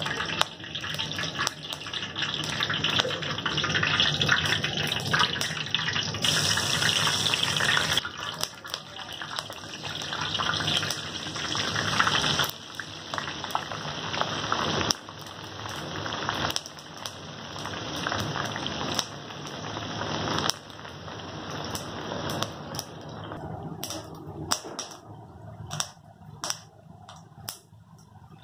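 Hot oil sizzling and crackling as onion pakodas deep-fry in a large kadai, a dense steady sizzle that thins to scattered pops in the last few seconds.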